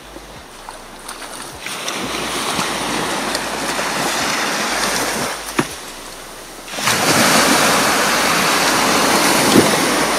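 Waves breaking and washing up a sand beach, a steady rush that swells twice and is loudest in the second surge, about two-thirds of the way in. A single sharp click sounds near the middle.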